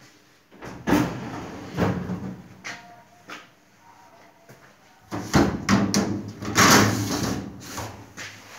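Stainless-steel hood of a Winterhalter hood-type commercial dishwasher being moved, with sliding metal and clanks in two loud spells: one about a second in, and a longer one about five seconds in as the hood goes up.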